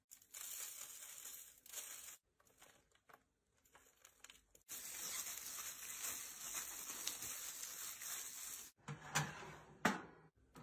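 Plastic-gloved hands rubbing spice and chili powder into meat shanks on a metal baking tray: a crinkling, rustling hiss in stretches with abrupt breaks, then a few sharp knocks near the end.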